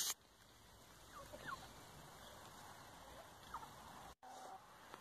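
Chickens calling faintly: a few short rising calls, about a second in and again past the middle, over a low steady hiss.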